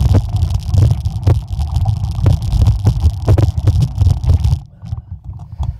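Wind buffeting the microphone of a mountain bike rider on a fast descent, with frequent sharp knocks and rattles as the bike runs over the rough dirt trail. The rush drops off abruptly about four and a half seconds in.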